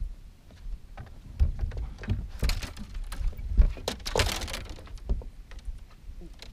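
Thumps and knocks on a bass boat's deck, with two short splashy rushes about two and a half and four seconds in, as a hooked bass is netted at the side of the boat.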